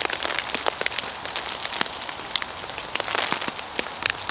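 Rain falling on a tarp shelter overhead: many irregular drop taps over a steady hiss.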